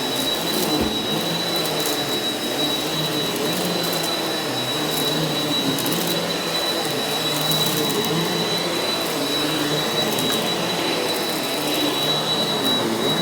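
Eureka NEU180B Power Speed upright vacuum cleaner running steadily over carpet, with a constant high whine. Its lower tone wavers as it is pushed back and forth, and it has scattered sharp ticks.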